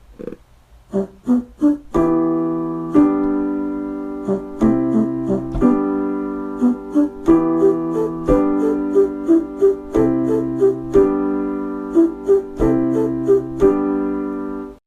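Electric piano music: a few single notes, then held chords from about two seconds in with a melody picked out on top, over a steady beat of crisp clicks.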